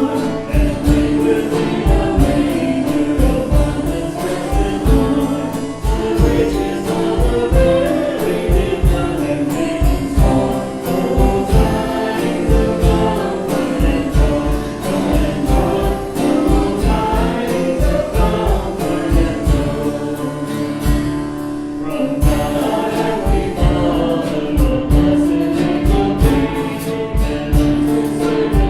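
Worship music: singing over a band, with a steady drum beat throughout.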